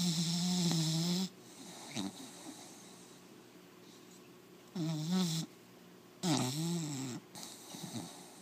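A four-month-old American Pit Bull Terrier puppy snoring in its sleep: three loud buzzing snores, one at the start lasting just over a second, then two more about five and six and a half seconds in, with softer breaths between them.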